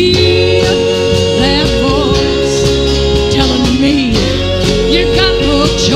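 Live acoustic country music: a woman singing to acoustic guitar accompaniment, with two long held notes.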